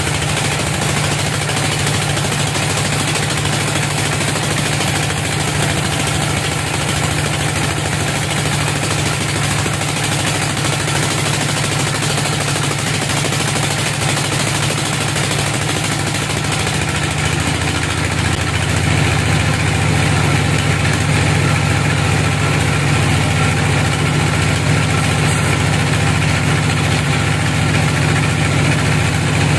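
Log band sawmill running steadily while it saws a teak log, a constant low machine hum with the hiss of the blade. It gets a little louder about two-thirds of the way through.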